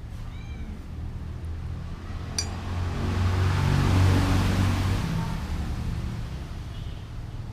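A road vehicle passing by, its noise swelling to a peak about halfway through and then fading, over a steady low hum. A short clink comes just before it.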